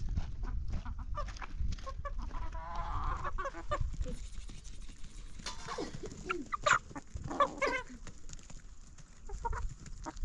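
Chickens clucking in short, scattered calls, over a steady low rumble and frequent small clicks.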